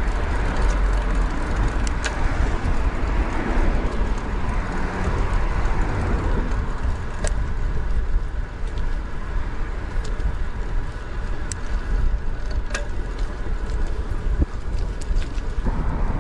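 Wind buffeting the microphone of a camera on a moving road bike's handlebars, over steady rolling road noise, with a few sharp clicks.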